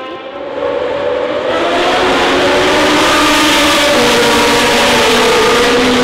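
Lotus 77 Formula One car's Cosworth DFV V8 racing engine accelerating. The note dips briefly, then grows louder about a second and a half in and climbs in pitch.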